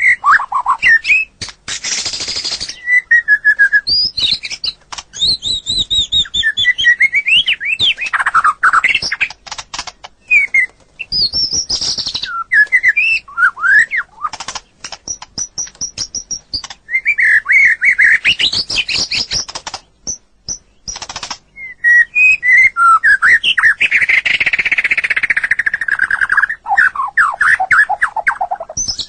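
White-rumped shama (murai batu) singing a long, varied song: whistled phrases that sweep up and down in pitch, mixed with fast runs of sharp, clicking notes and short pauses.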